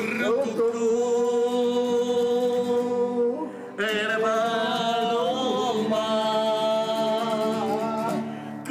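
Singing with acoustic guitar: two long held notes, the second slightly wavering, with a short break between them about three and a half seconds in.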